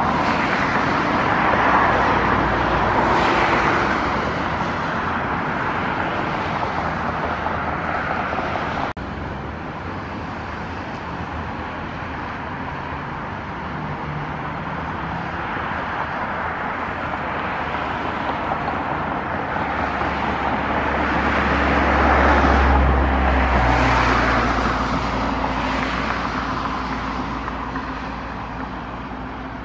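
Distant, steady rumble and hiss of the Antonov An-124's four Progress D-18T turbofan engines at taxi power. The level drops abruptly about nine seconds in, then swells again with a stronger low rumble a little after twenty seconds.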